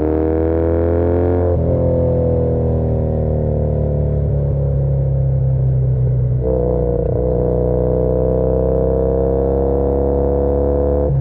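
2013 Triumph Bonneville T100's air-cooled 865 cc parallel-twin engine under way, heard raw. It pulls with rising pitch, drops back about 1.5 s in, then picks up again about 6.5 s in and climbs steadily under throttle.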